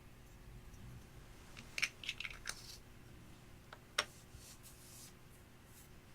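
A quick cluster of small sharp clicks and crackles about two seconds in, then a single louder sharp click about four seconds in, followed by a few faint crackles.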